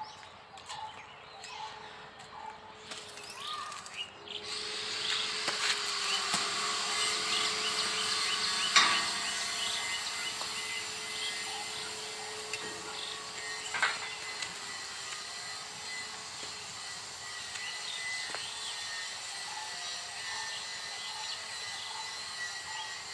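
Metalworking noise: a steady hiss that builds about four seconds in, over a constant low hum, with two sharp knocks along the way.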